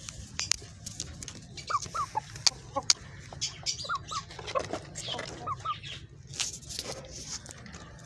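Chickens in a wire cage giving soft, short clucks, several in quick pairs, with scattered sharp clicks among them.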